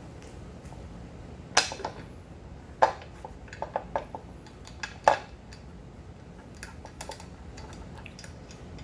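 Metal clinks and taps as steel bolts and nuts knock against a metal fender bracket while they are fitted by hand. There are a few sharper knocks about one and a half, three and five seconds in, with lighter clicks between them.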